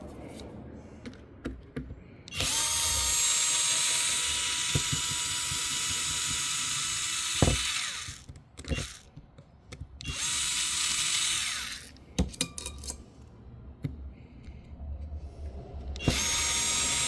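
Small cordless drill driver backing out the tiny 2 mm hex bolts on an RC dirt bike's wheel hub, in three runs with a steady whine: a long one of about five seconds, a shorter one of about two, and another starting near the end. Light clicks and tool handling fill the gaps between runs.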